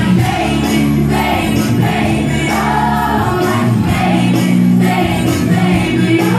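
Loud dance music with a singing voice and percussion, played over a party sound system.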